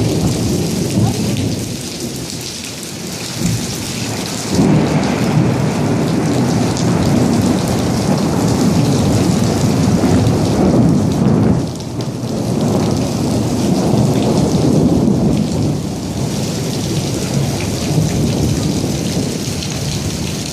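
Heavy rain pouring down, with a deep rumbling underneath that swells about four seconds in and falls back near twelve seconds.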